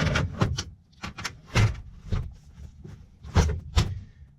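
A run of irregular knocks and clunks, about a dozen sharp hits, from sheet-metal parts of a packaged AC unit being handled.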